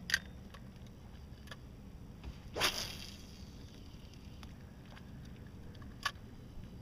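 Fishing rod and reel handled while working a topwater frog lure: a sharp click at the start, a brief swish about two and a half seconds in, and another click about six seconds in.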